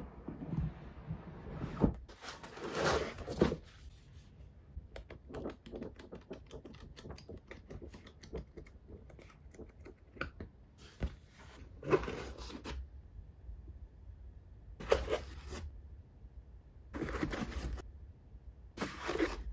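Cardboard packaging of a model kit being handled: a few rubbing, sliding sounds, then a long, rapid run of flicking ticks as the pages of a paper instruction booklet are riffled. Near the end come several short, separate rustling scrapes.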